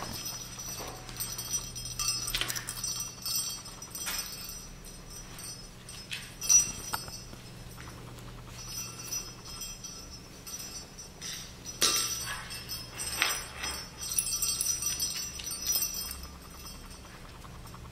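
A young Scottish terrier's claws clicking on a wooden floor as it moves about, with scattered light jingling and clinking as it handles toys.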